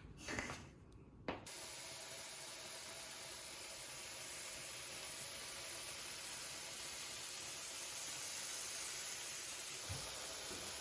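A steady hiss that starts abruptly about a second and a half in and holds evenly, with a soft low thump near the end.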